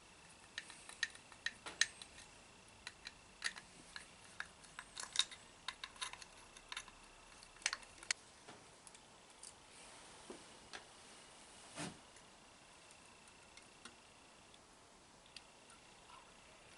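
Irregular sharp metallic clicks and clinks of small tools and parts as the fuel pressure regulator of a Chevy TBI unit is taken apart, densest in the first half, with a duller knock about two-thirds of the way through.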